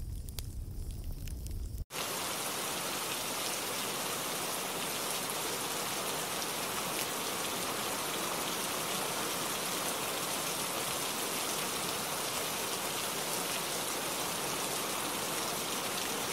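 Steady, even rain-like hiss that starts abruptly about two seconds in and fades out near the end. Before it comes a low rumble with a few crackles.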